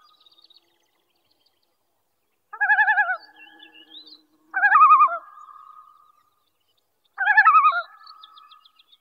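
Common loon giving its tremolo call, a wavering, rapidly quavering laugh-like cry, three times about two seconds apart, with faint chirps of small birds between.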